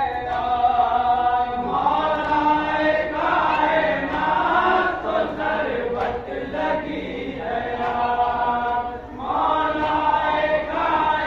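A group of men chanting an Urdu noha (Shia lament) in unison, led through a microphone, in long sung phrases with short breaks between lines. Slaps of hands beating on chests (matam) sound along with the chant.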